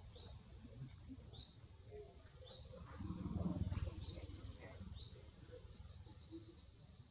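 A bird chirps in the background, a short rising call about once a second, breaking into a quick run of chirps near the end. About three seconds in comes a louder rustle lasting about a second, as a monkey moves past close by.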